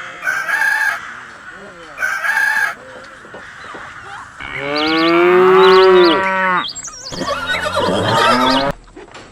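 A rooster crowing: one long, loud call that rises and falls, about halfway through, followed by a second shorter call. Two short harsh sounds come earlier.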